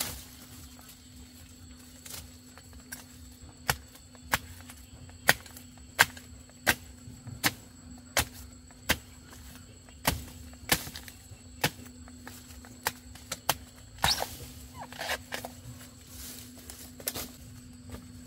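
A run of sharp strikes, like a blade chopping, coming irregularly about one to two a second, with a brief scraping rustle about fourteen seconds in.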